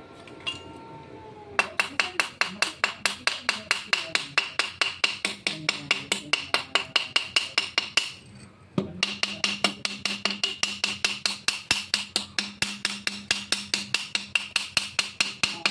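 Bent steel rod rapidly tapping at a freshly welded joint on a steel exhaust pipe, about four ringing metallic strikes a second. The strikes come in two long runs with a brief pause about eight seconds in.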